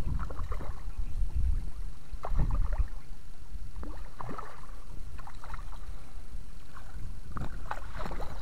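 Water splashing and sloshing in short bursts as a hooked fish is played up to a landing net at the water's edge, over a steady low rumble of wind on the microphone.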